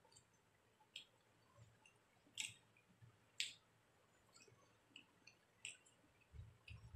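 Faint, scattered sharp clicks about a second apart from eating rice by hand, with a few soft low thumps near the end.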